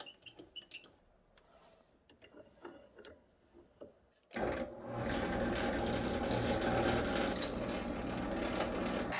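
Faint clicks and taps as a knife-handle block is set in a drill-press vise, then about four seconds in the drill press motor starts suddenly and runs steadily as the bit cuts into the block, hollowing the slot for the knife's tang.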